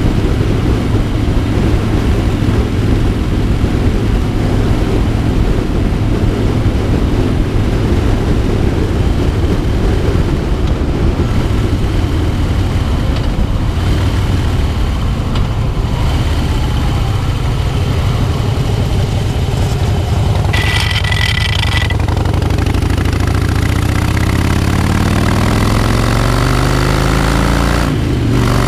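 2009 Harley-Davidson Crossbones' air-cooled V-twin engine running at road speed, mixed with wind noise. In the last several seconds the engine note climbs steadily as the bike accelerates, then dips briefly near the end.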